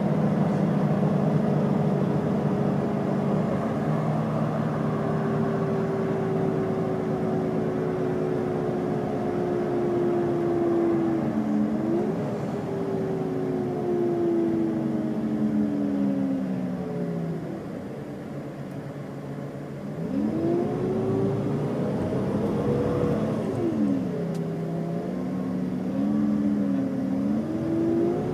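Iveco Crossway LE bus with a Cursor 9 six-cylinder diesel and Voith automatic gearbox, heard from inside the bus. The engine and driveline pitch falls steadily as the bus slows, goes quieter for about two seconds, then climbs as the bus pulls away. The pitch drops sharply at a gear change and rises again near the end.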